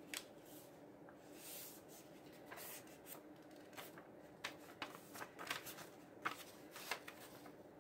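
Faint rustling and crackling of a printed paper wrapper being folded and handled, in quick short bursts that come thickest through the second half.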